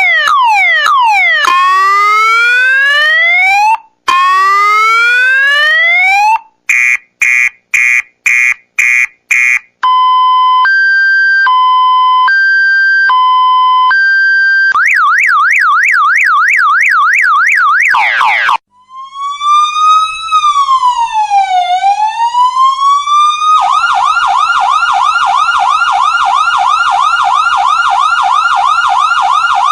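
A run of electronic emergency-siren sound effects that changes pattern every few seconds: quick falling sweeps, two long rising whoops, about seven short rapid beeps, a two-tone hi-lo alternation, a fast yelp, one slow wail that rises and falls, then a rapid warble.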